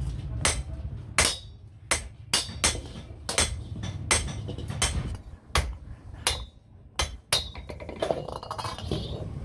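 Hand hammer striking metal in a run of sharp blows, about two a second and irregular, fixing an iron loop handle onto the rim of a galvanized sheet-iron pan.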